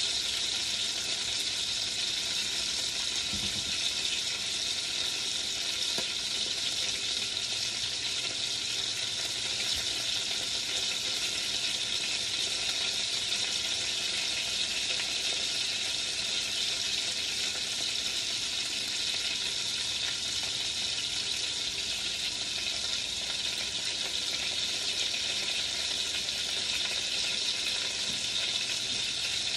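Chicken sizzling steadily in an enameled cast iron Dutch oven, an even hiss with no break.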